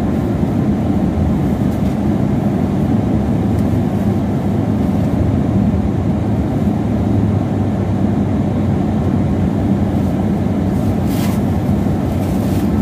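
Steady rumble of a car being driven, heard from inside the cabin, with a short hiss about eleven seconds in.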